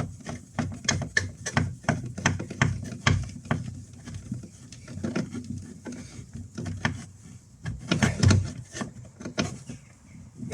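Hands working on electrical wiring: a string of irregular small clicks, taps and rubbing as wires are handled and fitted to terminals and a connection block, with a few heavier knocks about eight seconds in.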